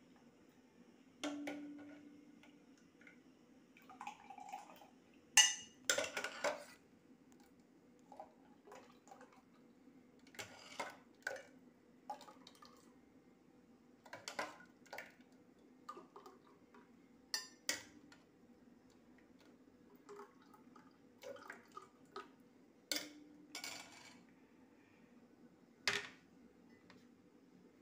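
Scattered clinks and taps of a steel spoon against a stainless steel pot and glass tumblers, a few ringing briefly, with a louder clatter about five to seven seconds in. A low steady hum runs underneath.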